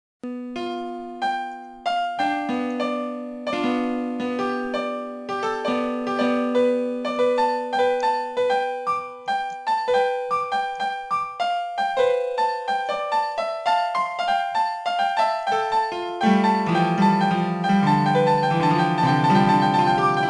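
Piano music beginning after a moment of silence: a melody of single struck notes that quickens into runs, with fuller, lower chords joining about 16 seconds in.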